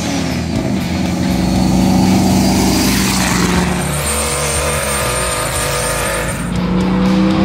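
Turbocharged Hemi V8 in a Ford F-100 pickup running under load. The engine note holds steady, drops off about four seconds in, and climbs again near the end as it revs back up.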